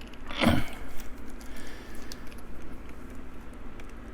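Small metal clicks and ticks of a screwdriver and pocket knife being handled while working a stuck screw, with one brief louder noise about half a second in.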